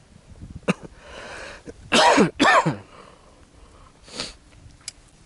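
A person coughing twice in quick succession, each cough loud and with a falling voiced tone, followed a couple of seconds later by a short, softer breathy burst.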